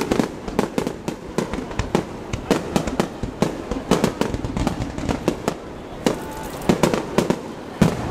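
Aerial fireworks shells bursting and crackling: many sharp bangs and pops in quick, uneven succession, thinning out briefly about six seconds in.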